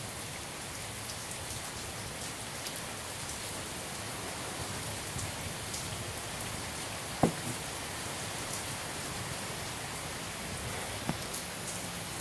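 Steady rain falling, an even hiss with scattered drips and ticks. A single sharp knock about seven seconds in stands out above it.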